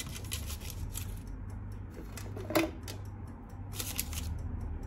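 Kitchen clatter: utensils and dishes clicking and scraping irregularly, with one sharp knock about two and a half seconds in, over a steady low hum.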